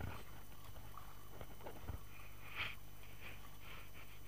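Kayak paddle strokes splashing in choppy sea water, with short calls from seabirds around the cliffs over a steady low rumble.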